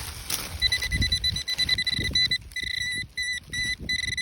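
Metal detector giving a steady high-pitched target tone, breaking on and off into a series of beeps of varying length as it passes over buried metal. Soft low thuds sound underneath.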